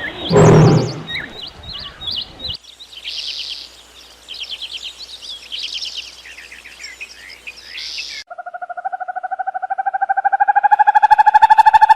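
A cow moos once about half a second in, over small birds chirping. The birds go on chirping and trilling in varied calls. About eight seconds in the sound cuts to a rapidly pulsing tone that rises slowly in pitch and grows louder.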